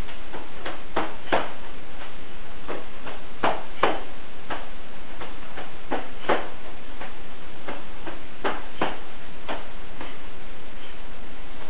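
Sharp slaps, often in quick pairs, from the whipping arm swings and palm strikes of tongbei quan, over a steady hiss.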